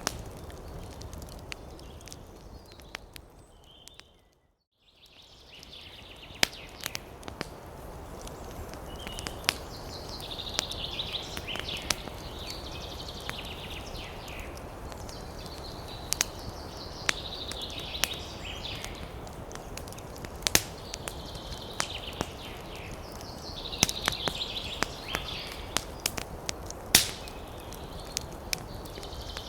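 Wood fire crackling, with irregular sharp pops and snaps over a steady rushing bed and a soft hiss that comes and goes. The sound drops out briefly about four and a half seconds in, and a single loud pop stands out near the end.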